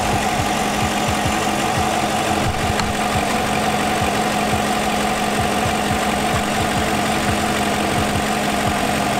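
GMC Denali truck's V8 engine idling steadily, heard close up from under the open hood.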